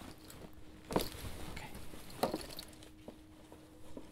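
Rustling and handling of a canvas bag as someone rummages inside it, with two sharper rustling knocks about a second and a little over two seconds in. A faint steady hum runs underneath.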